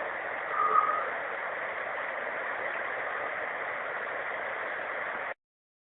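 Steady rushing noise with a brief higher tone just under a second in, cutting off abruptly near the end.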